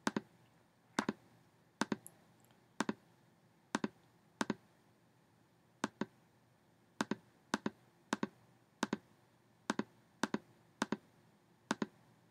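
Computer mouse clicking the buttons of an on-screen calculator as numbers are entered. The sharp clicks come irregularly, about one or two a second, many in quick pairs.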